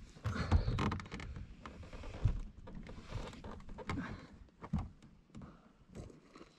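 Handling noise from someone climbing out of the back of a car: clothing and bedding rustling, with scattered knocks and a few thumps against the car.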